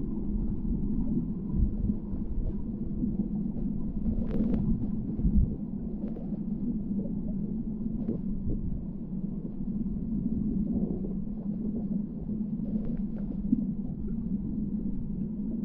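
Muffled underwater sound from a camera held below the river's surface: a steady low rush of flowing water, with a few faint clicks.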